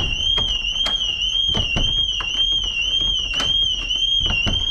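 Building intruder alarm sounding continuously: a loud, high electronic tone warbling up and down about twice a second, set off by a sensor. Several sharp knocks and rattles sound over it as locked double doors are pushed and pulled by their handles.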